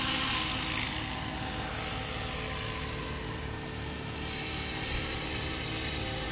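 Radio-controlled F3C aerobatic helicopter flying, its rotor and drivetrain giving a steady multi-tone whine, with a rushing hiss that falls away in the first second and swells again about four seconds in. A rough rumble underneath is wind buffeting the phone's microphone.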